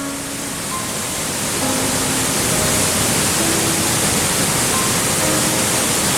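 Steady rush of mountain water from a waterfall and clear stream, a dense hiss that swells over the first second or two and then holds level. Soft background music of sparse, held notes plays faintly over it.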